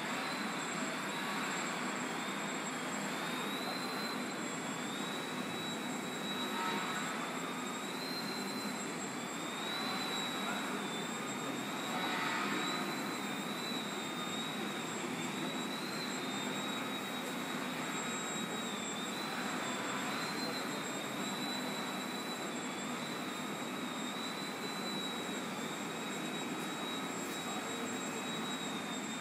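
The electric motor and propeller of a 150 g depron Yak-54 indoor aerobatic model plane, running with a steady high whine as it hovers nose-up. The pitch wavers slightly up and down with the pilot's throttle corrections that hold the hover.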